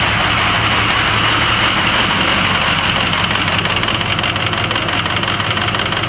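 A Ford 6.0L Power Stroke V8 diesel idling roughly with a lumpy beat, sounding like a big old dirty cam, while injector 1 is switched off by the scan tool in a power balance test. The beat grows more distinct about two-thirds of the way in. The engine is already misfiring on weak or dead injectors.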